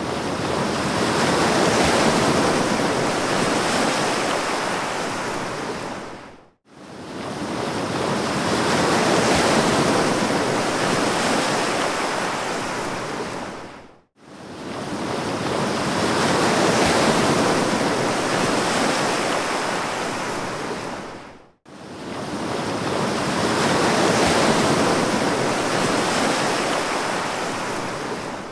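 Ocean surf: a rushing noise that swells up and dies away every seven and a half seconds or so, dropping briefly to silence three times. The regular spacing is that of a short wave recording played on a loop.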